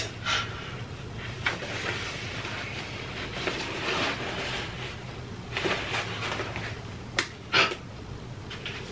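White paper wrapping being handled and pulled off a new iMac, rustling steadily, with a few short sharp crinkles and snaps of the sheet.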